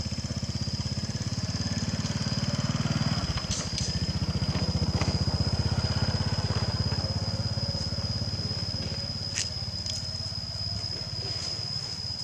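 A small engine running nearby with a fast, even low putter, which eases off near the end. A steady high-pitched whine runs throughout.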